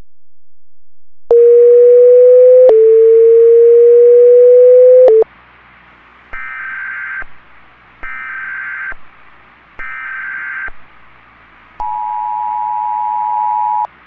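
Emergency Alert System tones. After a second of silence, a loud steady low tone plays for about four seconds, with a click partway through. Then come three short buzzy screeches about a second apart, the SAME header data bursts. Near the end the two-tone EAS attention signal begins.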